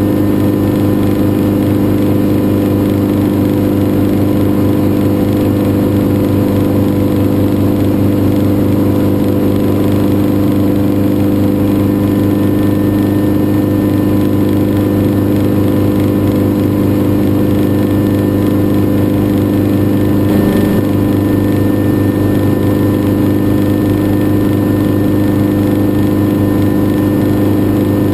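Schweizer 300 helicopter's four-cylinder Lycoming piston engine and rotors running steadily, heard from inside the open cockpit as a loud, even drone that holds one pitch throughout.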